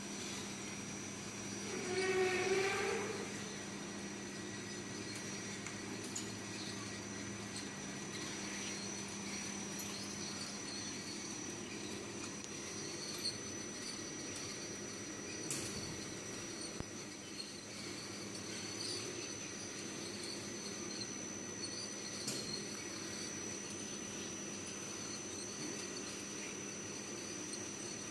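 Automatic flatbread production line running: a steady machine hum from its motors and conveyor belts, with a constant high-pitched whine and a few light clicks now and then.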